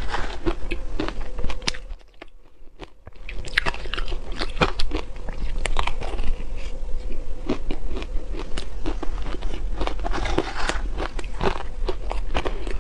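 Close-up crunching and chewing of mouthfuls of soft shaved ice, a dense run of crackling crunches, with a brief quiet pause about two seconds in.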